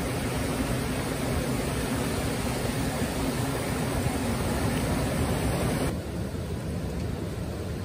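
Mountain stream rushing over rocks: a steady, even rush of white water. About six seconds in it gives way abruptly to a quieter, softer steady rush.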